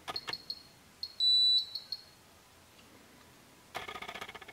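Bikemaster 1/4-inch digital torque wrench's electronic buzzer beeping once, a high steady tone for about half a second, about a second in. Scattered clicks come before and after it, and a quick burst of rapid clicking comes near the end.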